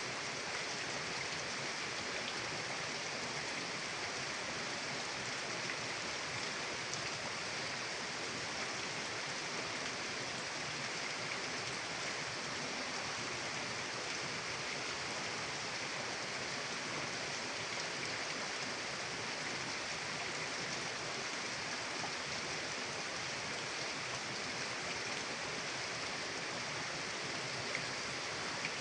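Mountain river water rushing steadily, an even hiss with no changes.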